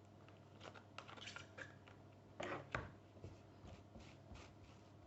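Table knife spreading soft spread onto a slice of bread: a series of faint scraping strokes, the loudest pair about two and a half seconds in.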